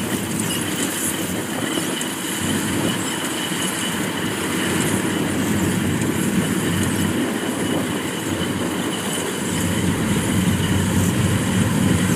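Kubota DC-105X combine harvester running steadily at work, its diesel engine and threshing machinery droning as it cuts lodged rice.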